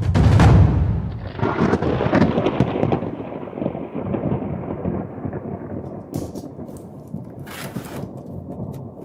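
Thunder rolling: a loud rumbling crash at the start that slowly fades away with crackles over several seconds.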